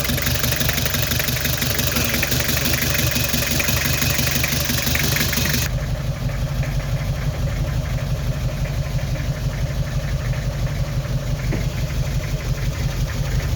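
Nissan TD27 four-cylinder diesel idling with the number three injector pipe cracked loose, a cylinder cut-out test to find the misfiring cylinder; the engine keeps running with its steady rhythm. A high hiss over the engine cuts off suddenly about halfway through.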